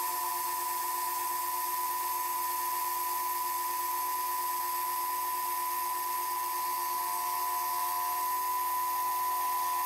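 Manual milling machine taking a cut with a face-milling cutter across the top of a metal workpiece: a steady high whine of the spindle and cutter that holds one pitch, over a hiss.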